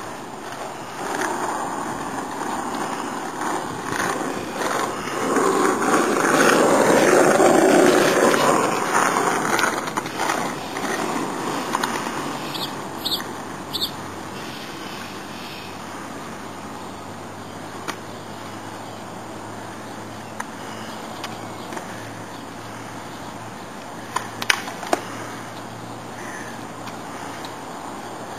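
Skateboard wheels rolling on asphalt, growing louder to a peak about seven seconds in as the board passes close, then fading away. A few sharp clicks come near the end.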